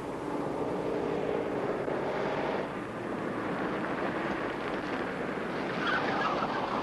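A 1950s convertible car driving fast round a bend and passing close, its engine running under a steady rush of tyre and wind noise, loudest near the end as it goes by.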